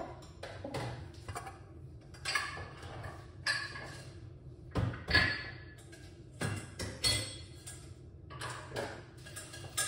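Kitchen handling sounds: irregular clinks and knocks of utensils and containers, with a few short rustling or scraping passages in between.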